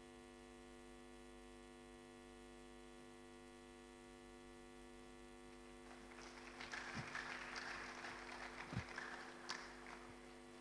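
Steady mains hum with many evenly spaced tones. About six seconds in, an audience breaks into applause for roughly four seconds, then it dies away.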